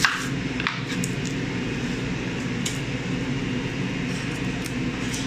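Steady machine hum, with a chef's knife knocking once on a plastic cutting board as it cuts through the end of an onion right at the start, then a smaller knock and a few faint clicks as the onion is trimmed and peeled.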